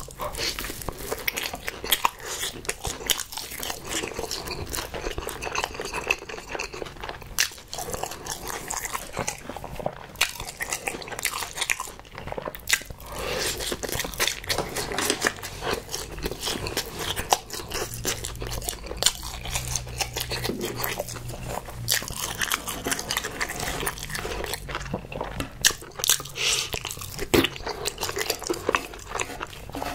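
Close-miked eating: crunchy bites into a sauce-coated fried skewer and chewing with the mouth open, with many sharp crunches and smacks throughout.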